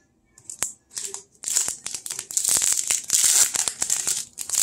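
Crinkly wrapper of a 2021 Topps Series 2 baseball card pack being torn open and pulled apart by hand. There is a single click after a brief near-quiet moment, then a dense run of crackling from about a second and a half in.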